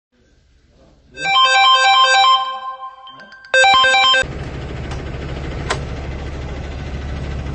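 A short electronic melody of quick, bright notes in two phrases, cutting off abruptly about four seconds in to a steady low mechanical hum, like an engine running, with a faint click shortly after.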